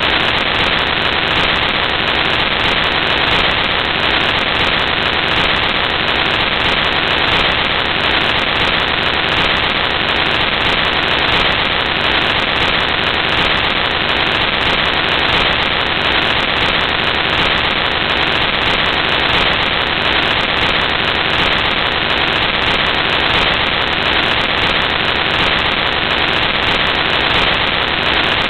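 Loud, steady hiss of static from a faulty audio recording, even throughout with no other sound standing out of it.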